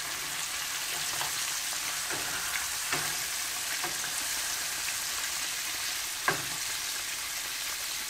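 Whole grunt and yellowtail snapper deep-frying in hot vegetable oil in a wok: a steady crackling sizzle. A single brief tap stands out about six seconds in.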